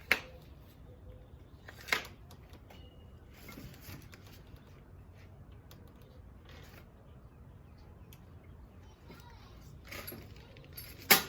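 Small objects being handled and set down: three sharp clinks or knocks, the last one near the end the loudest, with light rustling between.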